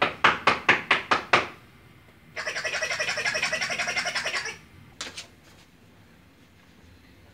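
Knuckles knocking on a door, a run of about eight quick knocks, followed a second later by a rapid pulsing rattle lasting about two seconds.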